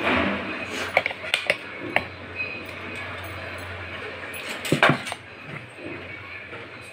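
Steel spoon and dishes clinking: a few light clicks, then a louder cluster of knocks about five seconds in, over a low steady hum.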